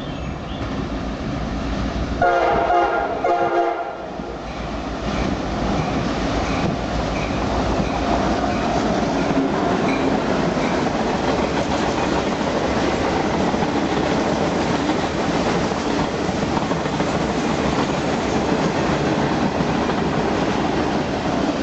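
Freight locomotive horn sounding two short blasts about two seconds in. The train then rolls past with a steady, loud rumble of engine and wheels on the rails that lasts to the end.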